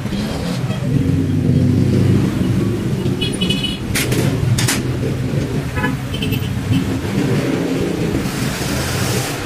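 Steady low rumble of motor vehicles running nearby, with short horn toots about three seconds in and again around six seconds. Two sharp clicks come about four seconds in.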